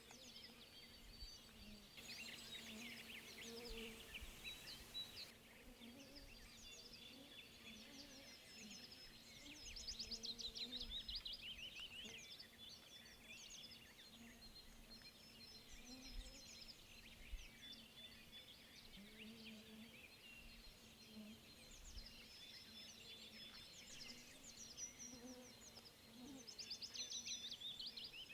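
Faint chorus of several small songbirds singing and chirping at once, with a low, steady hum underneath.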